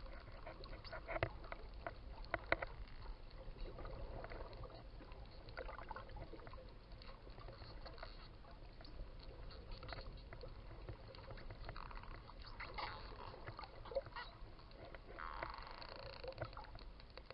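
Dolphins calling underwater: scattered sharp clicks and short squeaky calls, the clearest squeal near the end, over a steady low rumble of sea water.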